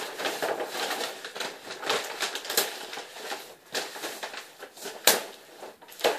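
Flooring underlayment sheet crinkling and rustling as it is handled and spread over the floor, full of small crackles, with a sharper snap about five seconds in.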